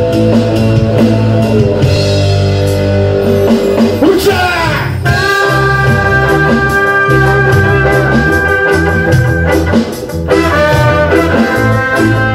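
Live reggae band playing, with a trumpet and a trombone playing over bass, drums and guitar. Long held notes run through the middle, and the band drops out briefly just before ten seconds in.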